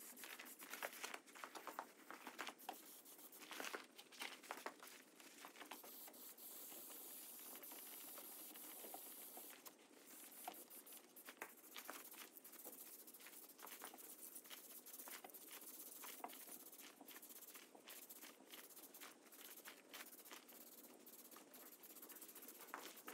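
Faint hiss of an aerosol can of red oxide primer spraying in long steady passes, with a short break about ten seconds in, and scattered light clicks and taps throughout.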